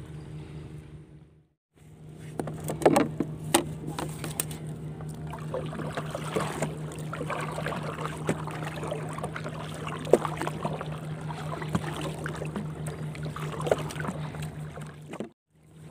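Small boat's motor running steadily, a constant low drone, with water rushing and slapping along the hull and occasional knocks. The sound drops out briefly about a second and a half in and again just before the end.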